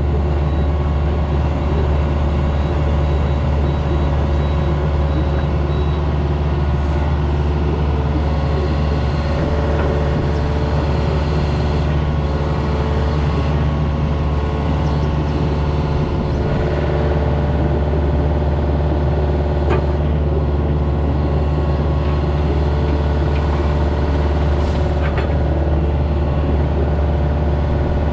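A compact excavator's diesel engine running steadily at an even pitch, with a few faint short knocks now and then.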